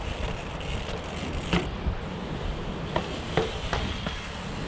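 Mountain bike's tyres rolling over stone steps and cobbled paving, with several sharp knocks of the wheels landing on the stone, over a steady low rumble of wind on the microphone.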